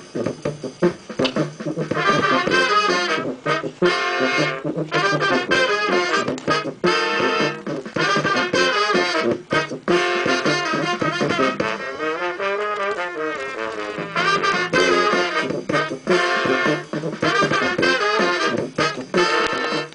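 Brass band music: horns playing phrases one after another.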